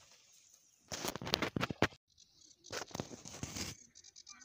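Close rustling and scratching with short crackles, in two bursts of about a second each, about a second in and again near the three-second mark: handling noise as the camera is moved over the bank grass.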